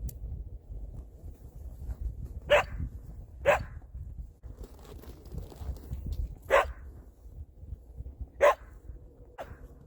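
A dog barking: four sharp single barks spaced one to two seconds apart, then a fainter fifth near the end, over a low rumble.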